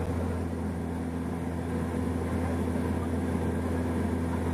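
Propeller aircraft's engines and propellers droning steadily, heard from inside the cabin.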